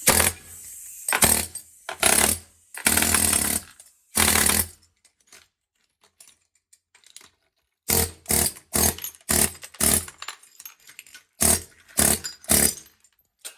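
Harbor Freight pneumatic air hammer chiseling into a 12 by 12 tile in repeated bursts: five longer bursts over the first few seconds, a pause with faint ticks, then a quicker run of about ten short bursts. The tile is being broken up in separate spots so that it cracks in small pieces without shattering the tiles next to it.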